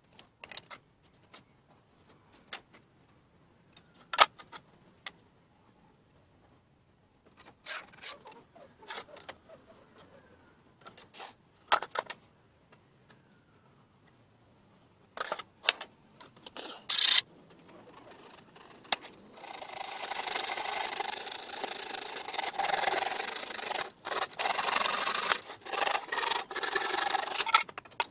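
Wooden boards and a plastic ruler being handled on a stone bench, with scattered knocks and clicks. From about two-thirds of the way in comes a long stretch of scraping and rubbing on wood, uneven in strength, which is the loudest sound.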